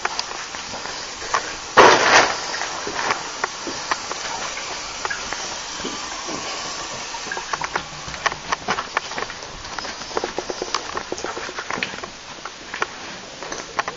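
Footsteps and handling noise from a handheld camera, a steady hiss scattered with small clicks and knocks, and one louder rustling bump about two seconds in.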